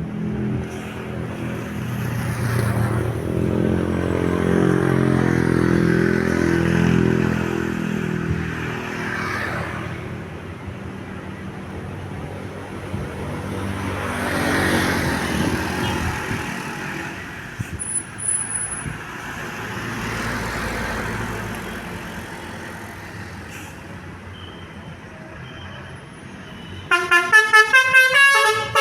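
Heavy vehicles pass by: an engine drone swells and fades twice. Near the end a telolet bus horn starts up loud, playing a rapid melody of quickly changing stepped notes.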